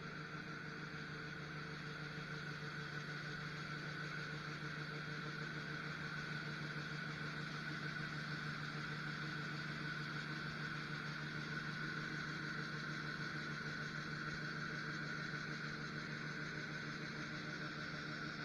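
Steady drone of farm machinery running at constant speed, heard from inside the cab: an even hum with a whine-like band above it, without change.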